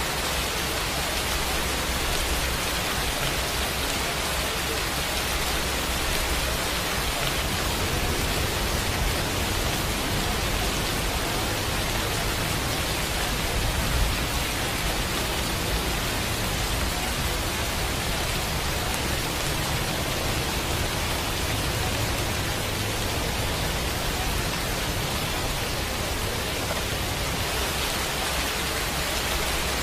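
Steady rain sound: an even, unbroken hiss with no breaks or swells.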